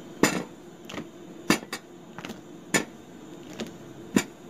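Metal spoon clinking against an enamel bowl as it tosses date balls in milk powder: about seven short, sharp clinks at uneven intervals, the loudest near the start.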